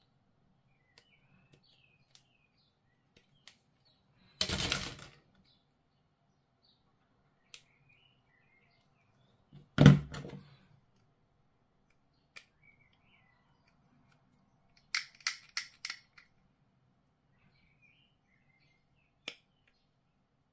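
Flush cutters working a plastic model-kit sprue: scattered small clicks and snips, a short rattle about four seconds in, a heavy thump near ten seconds as the cutters are set down on the cutting mat, and a quick run of four or five snaps around fifteen seconds.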